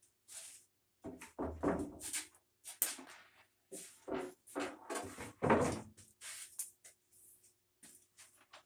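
Irregular knocks, scrapes and a few heavier thuds as a sheet of plywood is handled and moved about in a workshop.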